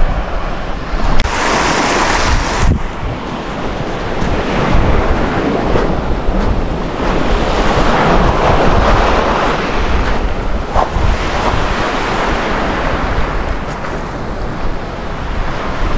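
Wind buffeting the microphone in a steady low rumble over the hiss of surf washing on a gravel shore, swelling and easing every few seconds.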